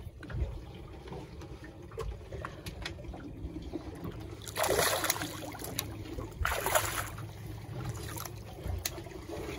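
A small snapper thrashing and splashing at the water's surface beside a boat as it is lifted out on the line, two splashes about two seconds apart near the middle, over a steady low rumble.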